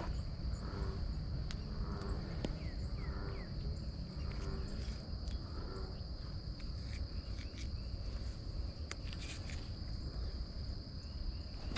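Insects droning steadily at one high, even pitch, with a few faint chirps and scattered ticks over a low background rumble.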